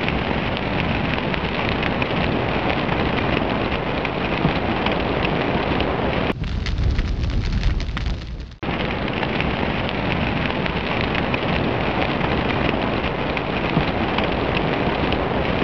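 Fire sound effect: a steady crackling rush of burning flames, changing in texture for a couple of seconds around the middle.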